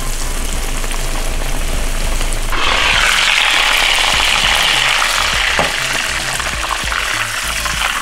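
Panko-breaded chicken cutlets frying in hot vegetable oil in a skillet, a steady crackling sizzle that grows louder about two and a half seconds in for about three seconds, then eases back.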